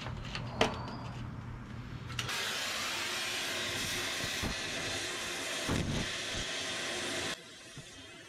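Oxy-fuel cutting torch hissing loudly as it cuts through a truck suspension bolt. It starts with a sudden rush about two seconds in, with a couple of dull thumps in the middle, and cuts off abruptly near the end. Before it there is a sharp click over a faint low hum.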